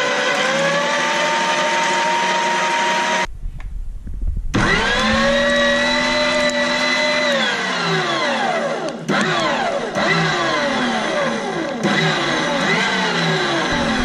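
Electric meat grinder motor running with a steady high whine. It breaks off for about a second around three seconds in, leaving a low rumble, then spins back up with a rising whine. From about eight seconds its pitch repeatedly sags and recovers as it churns a soft, sticky load.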